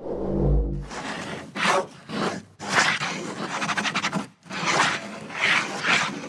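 Animation sound effects: a low boom at the start, then a run of scratchy, swishing strokes like a marker scribbling a line across paper.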